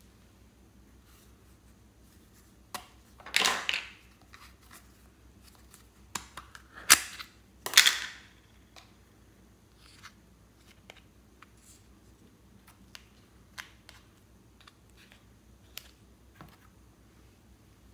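Hard plastic containers handled and opened, giving sharp clicks and short rattles, with the loudest snaps about three and seven seconds in. Later come scattered faint ticks as a small plastic stick scoops clay from a tub.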